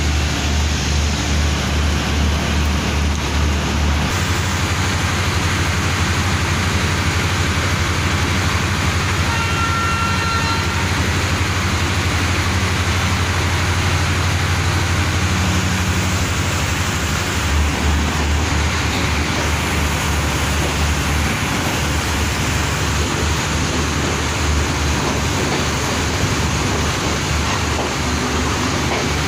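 Diesel train's engine running with a steady low throb under a constant rushing noise, heard from the carriage door. A brief faint high tone comes about ten seconds in.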